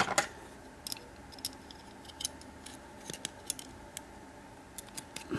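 Small metal clicks and taps as a steel padlock body and the tool picking at the spring inside it are handled, with one louder clank at the start.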